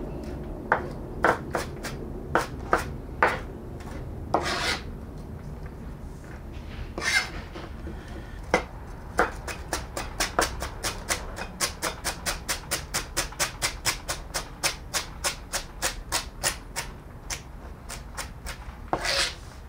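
Kitchen knife chopping celery finely on a cutting board. Scattered chops settle into a fast, even run of about four a second, with a few longer rasping strokes in between.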